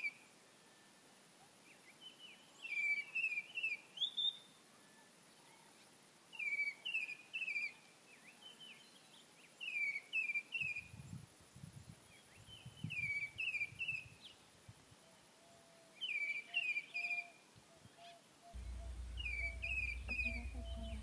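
A bird repeating a short song phrase of three or four quick high chirps, about every three to four seconds. A steady low rumble comes in near the end.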